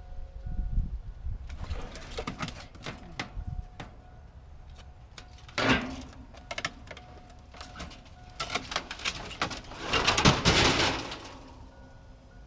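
Metal scrap clanking and knocking, with two louder scraping crashes about six and ten seconds in.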